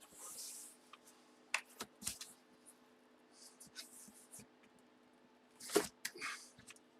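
Quiet handling of a sealed trading-card box and its packaging: a brief rustle of plastic at the start, then scattered light clicks and taps, with a louder tap about six seconds in, over a faint steady hum.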